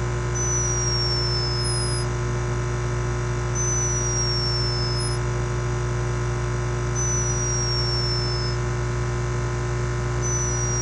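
Sleeping hummingbird snoring: a thin, high whistle that slides down in pitch, four times at about three-second intervals. Under it runs a steady hum from the camera's microphone sensitivity turned up high.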